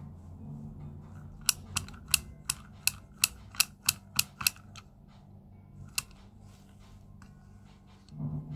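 About ten sharp clicks in quick succession, roughly three a second, then a single click a second and a half later, over a low steady hum.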